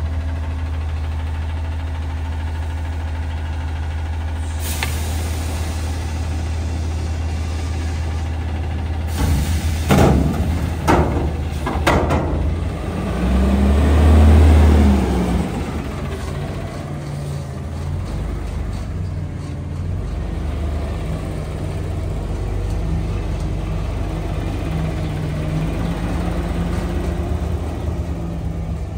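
Autocar WX front-loader garbage truck running at idle, with a hiss of air about five seconds in and several sharp metal clanks around ten to twelve seconds. Its engine then revs up and falls back briefly, and it pulls away.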